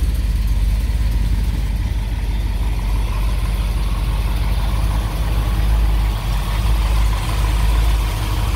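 A 1971 Dodge Challenger R/T's 440 Six Pack V8 idling steadily, with a mild Comp Cams camshaft that gives the idle a little lumpiness.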